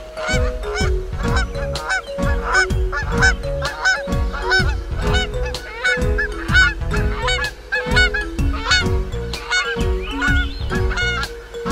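Cartoon soundtrack: a bouncy tune with a steady beat and stepping notes, under a fast run of short honking calls.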